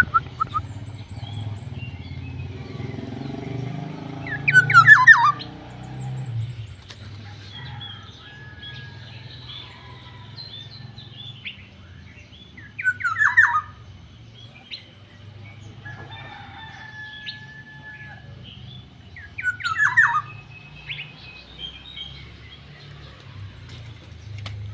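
Black-naped oriole (kepodang) giving a loud, harsh, falling call three times, about eight seconds apart. Fainter chirps and whistles of other birds fill the gaps over a low steady rumble.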